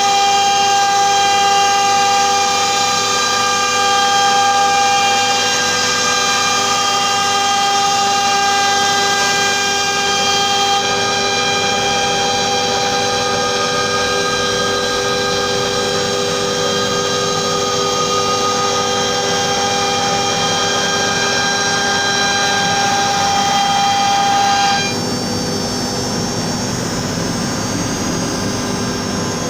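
CNC router running on plywood: a steady spindle whine of several fixed tones over cutting noise. About 25 seconds in, the upper tones drop away and the sound becomes somewhat quieter.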